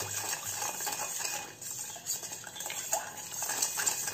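A metal spoon stirring sugar into lemon juice in a stainless steel bowl, scraping the bottom with irregular small clinks against the bowl.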